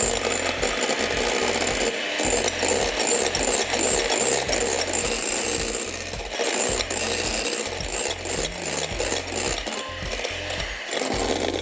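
Electric hand mixer running, its wire beaters whipping egg whites in a glass bowl.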